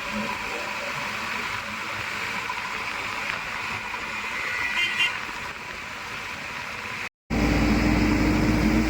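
Diesel engine of heavy farm and earthmoving machinery running steadily. About seven seconds in the sound cuts out for a moment and returns louder, with a steady low drone.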